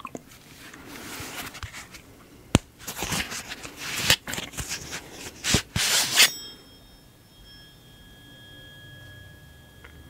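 Rustling and handling noise as a tuning fork is drawn from its cloth case, with a sharp click a couple of seconds in. About six seconds in the fork is struck and rings with a steady high tone and fainter overtones that slowly fade.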